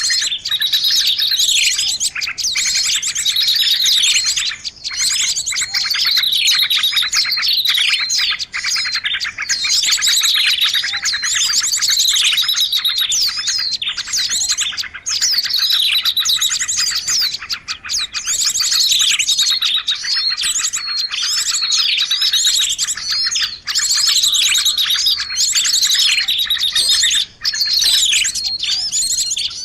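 Songbird singing without pause: a fast, high trill with a falling note, the phrase repeated every two seconds or so.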